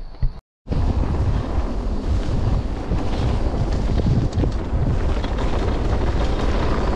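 Wind buffeting the microphone of a camera on a mountain bike riding fast down a dirt track, with rumble from the tyres and bike over the ground. The sound cuts out for a moment about half a second in, then the wind noise comes back.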